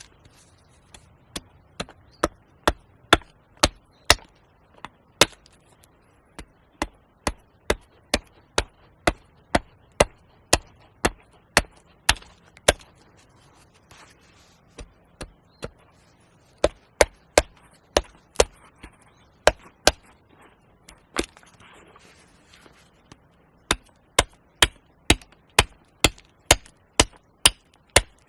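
Axe chopping wood: sharp, evenly paced blows about two a second, in runs of several seconds with short pauses between.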